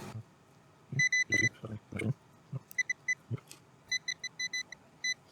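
Digital multimeter in continuity mode giving short, high beeps in quick clusters as the probes touch the board, with a few soft knocks between them. The beeps come only as brief chirps, and the main power rail is judged not shorted.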